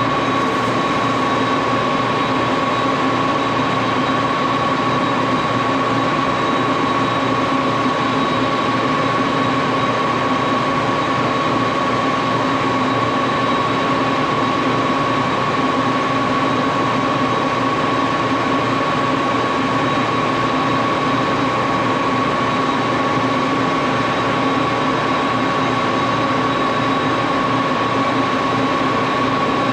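Axelson engine lathe running steadily during a screw-making job, a constant machine hum with a steady whine and no change in speed.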